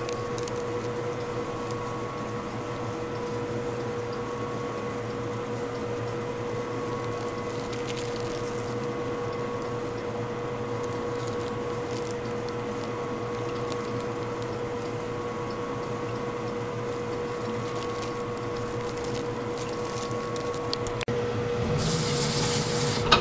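Marunaka Supersurfacer fixed-knife planer running steadily, a constant hum with a steady mid-pitched tone. Near the end a louder rushing hiss sets in as knotty pine feeds across the bottom knife, taking a thin shaving.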